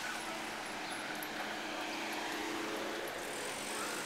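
Street traffic noise: car engines running, with a steady hum of background noise.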